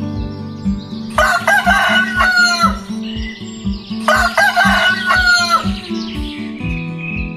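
A rooster crowing twice, each crow lasting about a second and a half, over background music with a steady beat.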